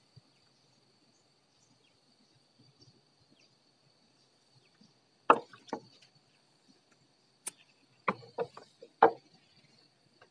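A handful of sharp knocks and clacks, about six in the second half, over a steady high-pitched insect drone.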